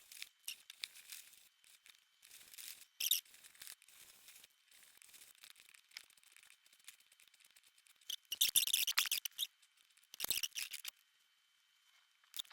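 Benchmade 707BK knife blade stroked across a sharpening stone: faint, irregular scraping swishes, with a few louder strokes about three seconds in and again near the end.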